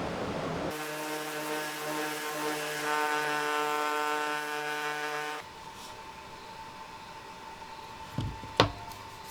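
A motor running at one steady pitch for about four and a half seconds, starting and stopping abruptly, then a faint steady hum with two short knocks near the end.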